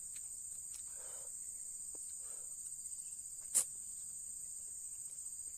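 Steady high-pitched insect chorus, with soft eating sounds of noodles twice in the first few seconds and one sharp click about three and a half seconds in.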